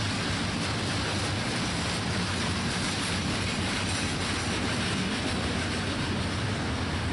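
Freight train cars rolling steadily past, a continuous low rumble of steel wheels on rail.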